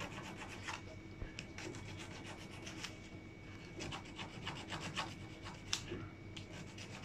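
Emery board rubbing along the edge of a laser-cut 1 mm plasticard part in many short, irregular scraping strokes, deburring it to take off roughness.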